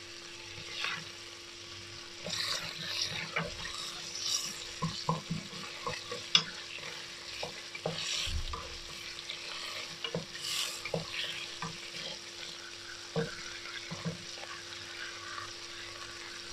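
Chopped red onion frying in butter and oil in a stainless steel pot, sizzling steadily while a wooden spoon stirs it, with repeated scrapes and light knocks of the spoon against the pot.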